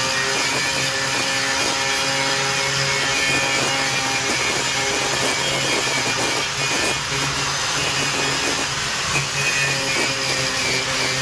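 Handheld power grinder running steadily, grinding old caulk and adhesive off the edge of a bathtub.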